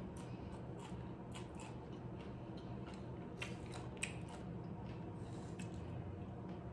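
Close-up chewing and crunching of nachos made with Doritos chips: irregular crisp crackles and crunches, several a second, over a steady low hum.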